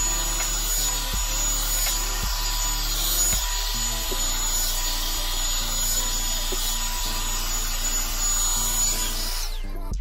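Revlon One Step hot-air brush dryer running steadily, its fan blowing with a thin high motor whine, then spinning down and cutting off near the end. Background music with a stepping bass line plays underneath.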